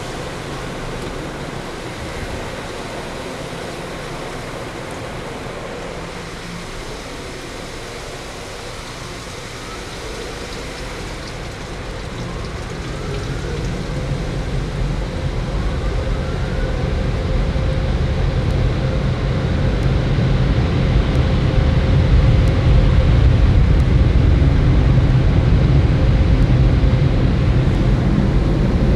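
Car wash air dryers blowing on the car, heard from inside the cabin: a steady rush of air that swells into a loud, deep rumble about halfway through and stays loud.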